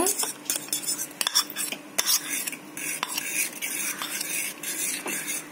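Metal fork stirring a pan of hot milk as a wheat-flour and milk batter is poured in, with quick, irregular clinks and scrapes against the pan. The mixture is stirred briskly so that it does not form lumps.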